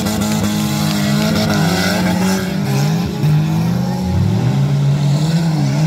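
Several racing stock-car engines revving hard and easing off together as the cars slide through a dirt-track bend. Their overlapping engine notes rise and fall in pitch.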